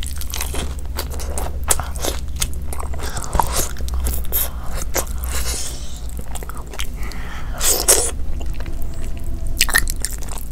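Close-miked mukbang eating: biting and chewing fried and curried meat by hand, with many short crunchy and wet clicks.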